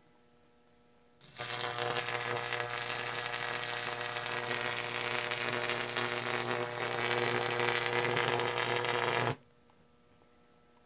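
Homemade Jacob's ladder's high-voltage electric arc buzzing with a steady mains hum and crackle, switched on about a second in and cutting off suddenly near the end.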